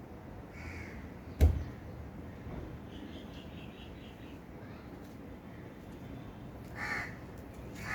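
A crow cawing, a faint call about a second in and a stronger caw near the end, with a sharp thump about a second and a half in. A quick run of high small-bird chirps comes around three seconds in.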